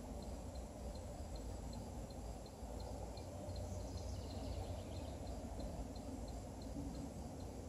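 Steady low background rumble with a faint, regular high-pitched tick about three times a second, and a brief faint chirp about four seconds in.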